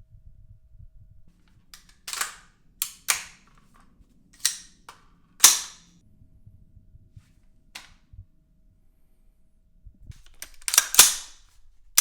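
SVRN PAC-15 AR-15 rifle with a 16-inch barrel firing semi-automatic single shots in an uneven string of about seven, each crack with a short echo tail. Two shots come in quick succession near the end, with a few fainter ticks between shots.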